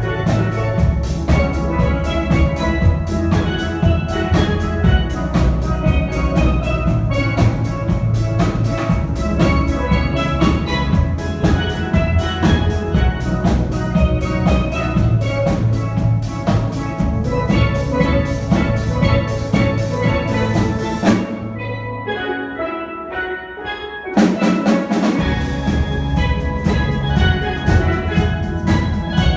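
Steel pan band with bass pans and drum kit playing an up-tempo arrangement. About three-quarters through, the bass and drums drop out for about three seconds, leaving the higher pans, then the full band comes back in.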